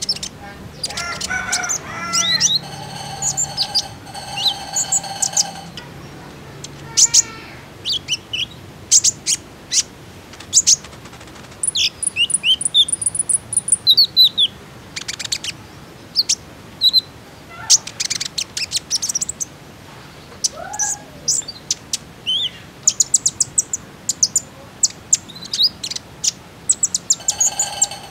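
Van Hasselt's sunbird (kolibri ninja) calling: rapid, very high, sharp chirps and ticks with short whistled slurs, used as a lure to set other konin singing. Lower, drawn-out call notes come in the first few seconds.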